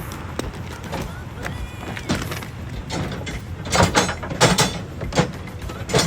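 Scattered metal clanks and knocks of a jack and hand tools being handled, clustered about four seconds in, over a steady low hum.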